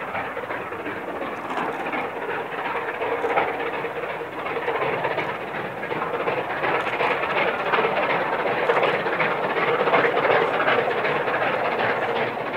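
Streamlined LNER A4-class steam locomotive working hard at the head of a passenger train: a steady rush of exhaust beats and rolling-stock noise that grows slowly louder.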